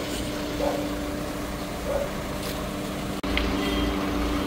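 A vehicle engine idling close by: a steady hum with a low, even throb. A brief dropout cuts it a little past three seconds in.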